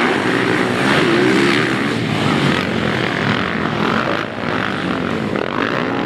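Several motocross dirt bikes revving hard as the pack accelerates past, their engine notes overlapping and rising and falling.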